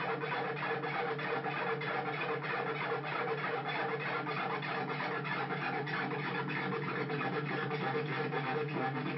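Handmade Arduino synthesizer running the Mozzi sound library, putting out a steady electronic drone: a low hum of held tones under a gritty, scratchy, fast-pulsing texture.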